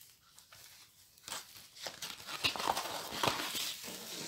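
Rustling and crinkling of packaging being handled and pulled open as a rolled diamond-painting canvas is unpacked, starting about a second in with many small crackles.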